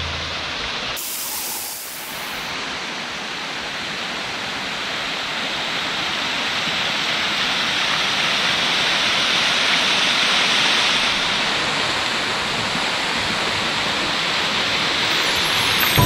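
A small waterfall of about a 16-metre drop, pouring steadily over mossy rock into a stream: a continuous rush of falling water that grows slightly louder. A brief high hiss comes about a second in.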